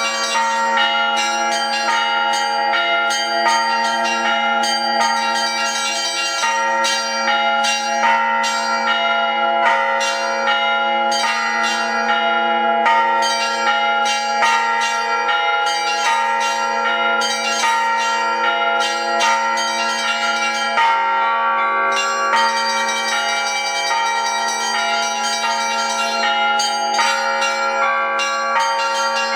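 Russian artistic bell ringing (zvon) on thin-walled bells together with thick bilas, struck plates: quick, rhythmic strikes over a sustained ringing of many pitches, with the pattern of strikes changing about twenty seconds in.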